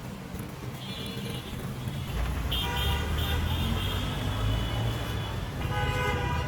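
Road traffic with a vehicle horn sounding, one long steady honk of about three seconds and then a shorter one near the end, over the low rumble of a passing vehicle.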